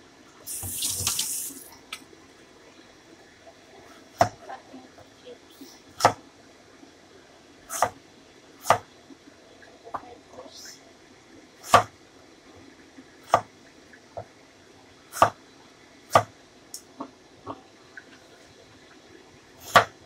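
Chinese cleaver chopping through winter melon onto a wooden chopping board: single sharp knocks one to two seconds apart, about nine in all. A short hiss comes about a second in.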